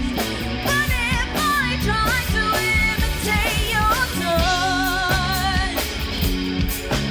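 Rock band playing a song: a singer holding long, wavering notes over guitar, bass and drum kit.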